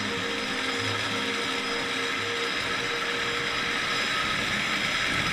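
Water-balanced cliff railway car running down its steep track: a steady mechanical clatter and hiss of wheels, cable and pulleys, with a hum that fades out about four seconds in.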